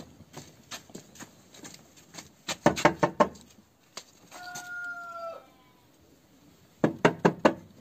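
Chickens: bursts of short sharp clucks, and about halfway a single held crow lasting about a second that drops in pitch at its end.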